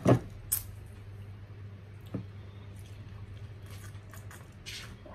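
Mouth sounds of someone drinking iced cola from a glass mug: two loud gulps right at the start, a smaller swallow about two seconds in, and a short slurping sip near the end, over a low steady hum.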